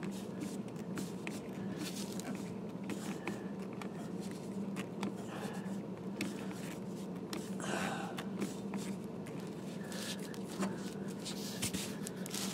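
A 15/16 wrench clicking and scraping against a hose fitting as the nut is tightened, with scattered small knocks and rustle from hands working in a tight space, over a steady low hum.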